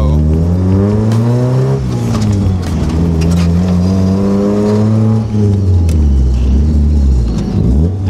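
Mazda Miata's four-cylinder engine under hard acceleration, revs climbing through the gears with a shift about two seconds in. Later the revs hold steady, then fall and jump back up in a quick blip near the end, a rev-matched heel-toe downshift.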